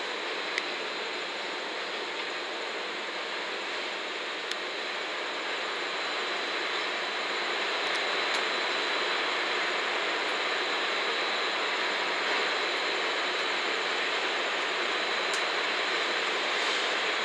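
JR West 117-series electric train, six cars, rolling slowly into a station: a steady wash of running noise that grows a little louder about six seconds in, with a few faint clicks.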